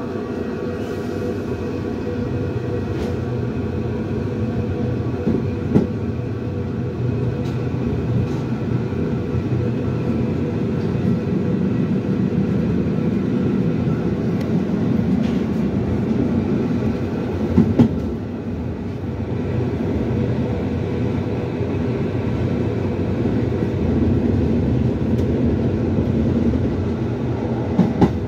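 Intercity passenger train running, heard from inside its rear end: a steady rumble of wheels on track, with a few sharp clacks as the wheels cross rail joints or points.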